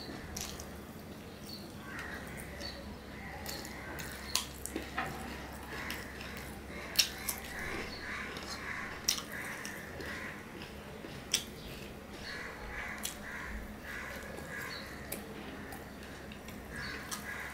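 A man eating rice and fried fish by hand close to the microphone: chewing, with sharp crunches now and then, the loudest about seven seconds in. Repeated harsh calls sound in the background.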